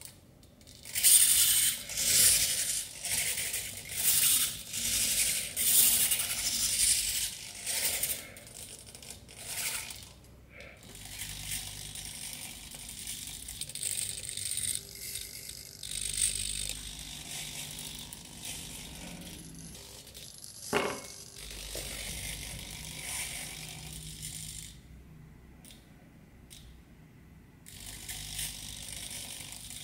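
Micro servo motors in a small robotic arm whirring in short, repeated bursts of gear noise as the arm moves, loudest and most frequent in the first eight seconds, then quieter. One sharp knock sounds about two-thirds of the way through.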